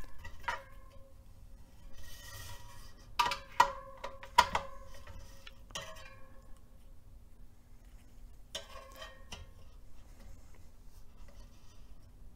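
Light clicks and taps of a bladed-spoke holder and a nipple driver against the tensioned bladed spokes of a carbon bicycle wheel, each tap leaving a brief ringing tone, with a short rubbing sound. They come in small clusters, the loudest run of several taps about three to four and a half seconds in and another group near the end.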